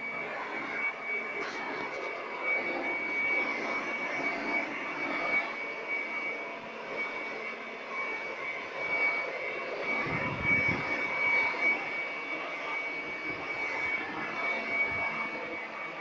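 Handheld electric air blower running steadily as a fogger, a high motor whine over a rush of air as it blows out a fine mist of disinfectant.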